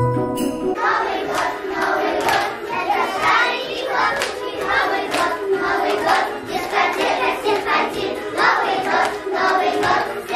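A group of children singing together and clapping their hands, taking over from a short tinkling tune that ends about a second in.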